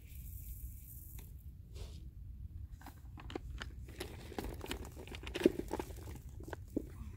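Dry green feed cubes tumbling out of a tipped plastic bucket onto hay: a run of irregular clattering knocks over the second half, the loudest about five and a half seconds in. A brief hiss of oats pouring comes at the start, and wind rumbles on the unshielded microphone throughout.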